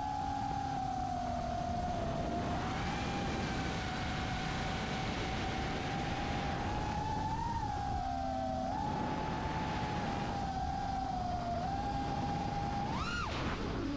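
Brushless motors and propellers of an iFlight Nazgul Evoque F5 5-inch FPV quadcopter whining in flight over a rush of air, the pitch wavering with throttle. Near the end a quick throttle punch sends the whine sharply up, then it drops low and climbs back.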